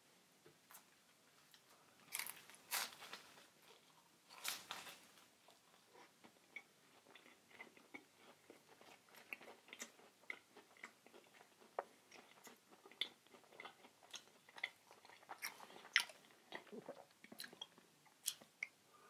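Close-miked eating: crunchy bites into crisp fried food about two seconds and again about four and a half seconds in, then steady chewing with many small clicks and crunches.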